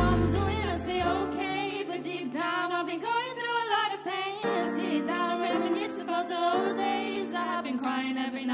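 Live band playing held chords while a backing singer sings a wavering, ornamented line with no rap over it; the deep bass drops out after about a second and a half.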